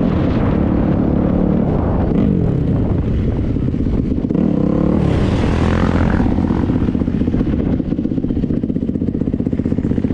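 A motor vehicle's engine running, its pitch rising and falling with changes of speed, then settling about three-quarters of the way in to an even, fast pulsing like an idle.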